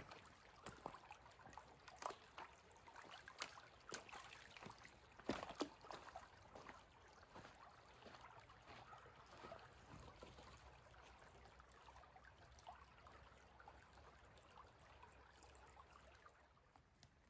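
Faint trickling of shallow stream water, with scattered light clicks and taps through the first half that fade out later on.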